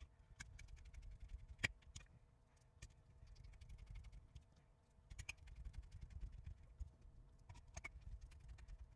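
Faint, scattered clicks and taps of the plastic housing of an Echo Dot smart speaker being handled and pressed together during reassembly, over a soft low rumble of room tone.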